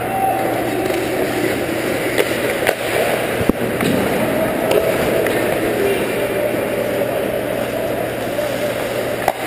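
Ice hockey skates scraping across the ice, with sharp clacks of sticks and puck several times, the loudest about three and a half seconds in.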